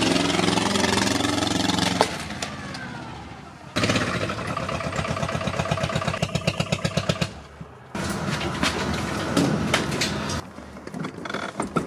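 Aixam microcar's small diesel engine running as the car pulls away, fading after about two seconds, then idling with a rhythmic chugging. Near the end, a few clicks as a tool-cabinet drawer is pulled open.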